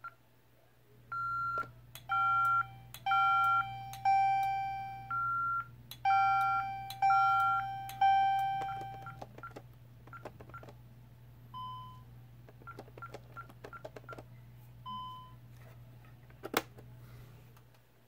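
Honeywell 6160 alarm keypad beeping as its keys are pressed, mixed with a series of louder, longer electronic tones that each die away, over a steady low hum. Later come quieter clicks and short key beeps, and one sharp click near the end.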